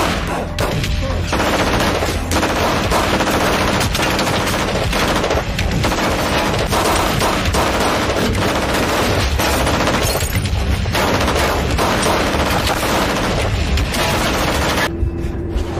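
Sustained gunfight: rapid automatic rifle fire mixed with pistol shots, nearly unbroken, thinning out near the end.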